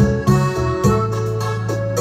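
Electronic keyboard music with an organ sound: held chords over sustained bass notes, with a new chord struck every half second to a second.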